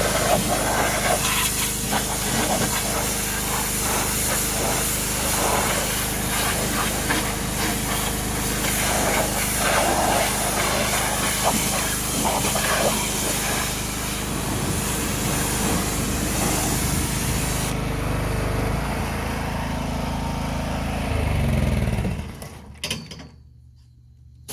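Engine-driven pressure washer spraying: a steady hiss of the water jet over the running engine. The spray stops a few seconds before the end, and the engine then drops and cuts off.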